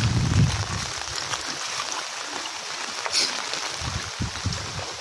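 Muddy floodwater rushing past in a steady hiss, with low buffeting on the microphone near the start and again about four seconds in.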